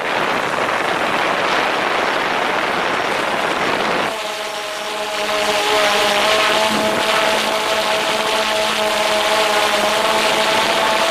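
DJI Phantom 4 quadcopter's propellers and motors running in flight, picked up by a camera slung under it. At first it is a noisy rush; from about four seconds in it becomes a steady whine of several tones.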